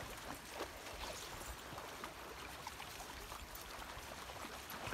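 Steady outdoor background noise, an even hiss with faint scattered soft ticks.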